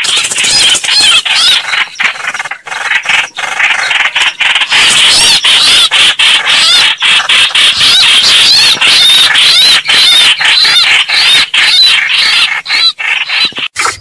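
Birds squealing and chattering in a loud, continuous, high-pitched stream with many brief breaks: a recorded bird-call file of the kind played to lure birds.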